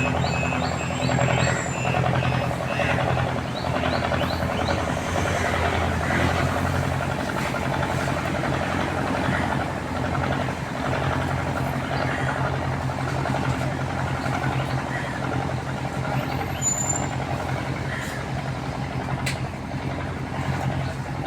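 An engine running steadily with a continuous low hum.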